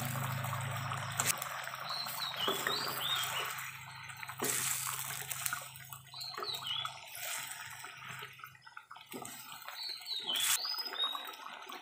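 Fish curry in a steel wok being stirred with a wooden spatula: wet sloshing and bubbling of the sauce, with a couple of sharp knocks of the spatula against the pan.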